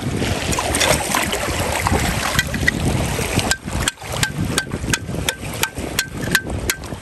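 Metal chisel striking hard rock to knock oysters loose, a quick steady series of sharp blows, about three a second, each with a short metallic ring. For the first few seconds only a rushing wind-and-sea noise is heard before the blows begin.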